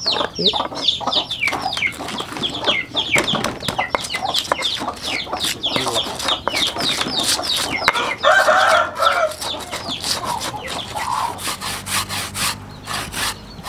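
Chickens clucking, with quick falling chirps again and again and a longer call about eight seconds in. Under them, a pestle grinds chilies and garlic in a stone mortar with short scraping strokes, and near the end a hand starts grating coconut on a grater with a steady rasping.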